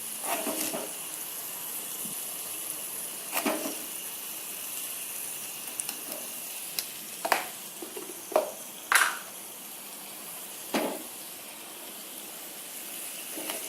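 Blended spice paste sizzling steadily in an oiled frying pan while it is stirred, with a spatula knocking and scraping against the pan six or so times.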